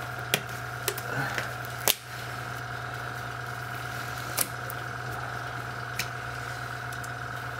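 Disposable glove being stretched and pulled on, with a few sharp snaps, the loudest about two seconds in. Under it, the airbrush compressor runs with a steady hum.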